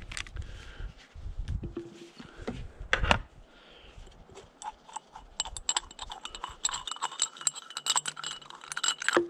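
Metallic clicking and clinking of a hand tool working on a small-engine carburetor's brass float bowl to take it off, with a sharp knock about three seconds in. In the last few seconds the clicks come thick and fast.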